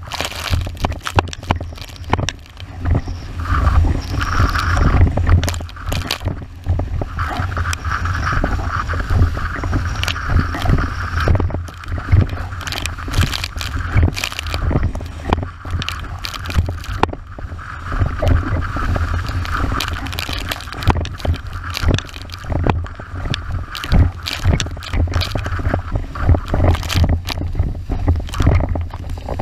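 Windsurf board planing fast over chop: water hissing and spraying off the hull, with frequent sharp knocks as the board slaps the waves. Heavy wind noise buffets the rig-mounted camera's microphone throughout.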